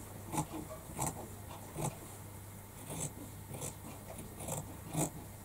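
Scissors snipping through fabric, a series of short sharp cuts at an irregular pace of roughly one or two a second as a circle is cut out.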